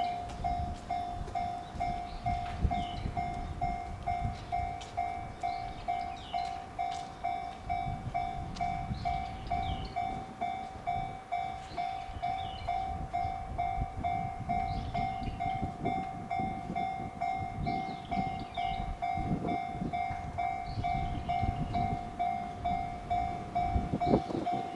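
Japanese railroad crossing's electronic warning bell dinging steadily, about two strikes a second, over the low rumble of a passing train.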